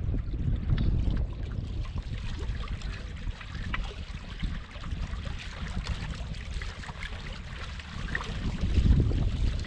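Water rushing, splashing and trickling along the hull of a small sailboat under way, over a low uneven rumble of wind on the microphone that swells near the end.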